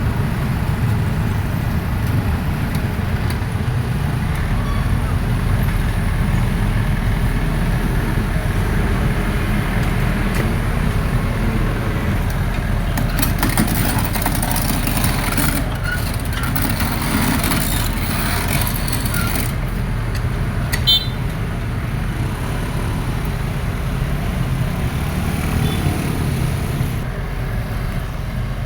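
Excavator's diesel engine running steadily with a low rumble, with a brief sharp click about three quarters of the way through.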